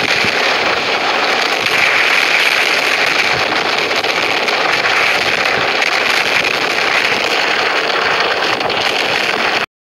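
Mil Mi-26 heavy-lift helicopter flying low overhead after take-off: its twin turboshaft engines and big eight-blade rotor make a loud, steady, rough rushing noise with a crackling edge. The noise cuts off suddenly near the end.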